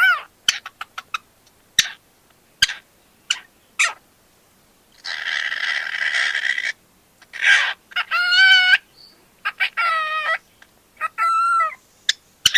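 Cockatiel calling: a run of short, sharp chirps, then a harsh screech lasting about a second and a half, then several warbling whistled calls.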